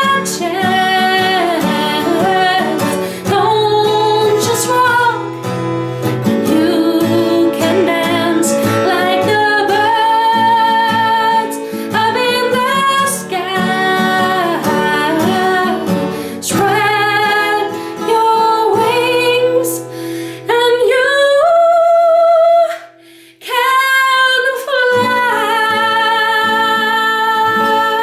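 A woman singing over her own strummed acoustic guitar. Near the end she sings a long rising held note, breaks briefly, then holds a final note.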